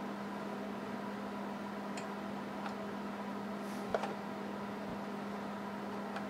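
Steady background hum with a few small, light clicks as a little metal hinge and pin are fitted into a wooden box lid, the sharpest click about four seconds in.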